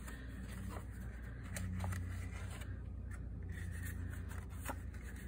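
Faint rustling and a few light taps of scored paper being handled and folded, over a low steady hum.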